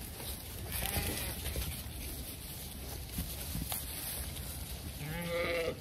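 Zwartbles sheep bleating: a faint call about a second in, then a loud, quavering bleat near the end.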